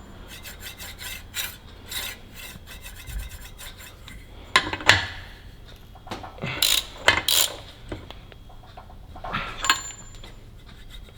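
Metal parts of a differential clicking and scraping while its bearing preload is being set, with several sharper metallic clanks in the middle.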